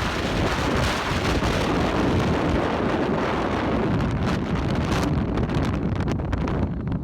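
Strong wind buffeting the microphone: a steady rushing noise broken by gusty crackles, easing slightly near the end.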